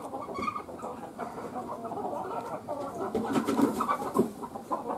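Chickens clucking and calling in a jumble of short sounds, growing louder about three seconds in, with a few sharp clicks near the end.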